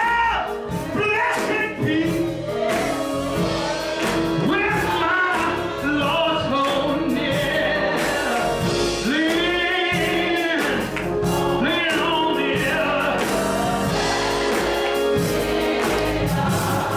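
A male soloist sings a gospel song into a microphone over live instrumental accompaniment, with other voices joining in.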